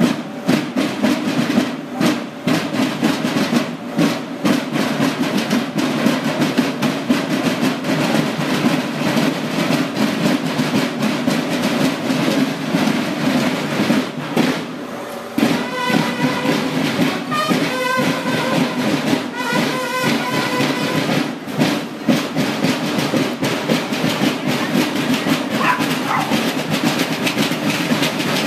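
School marching band drums, snares and bass drums, beating a rapid marching rhythm. A few short pitched notes sound about halfway through.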